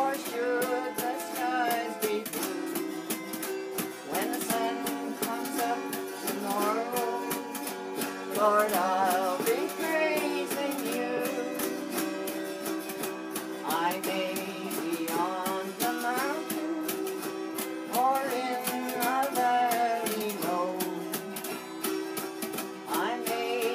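Two autoharps strummed in sustained, steady chords, with a woman's voice singing a melody over them with a wavering vibrato in phrases every few seconds.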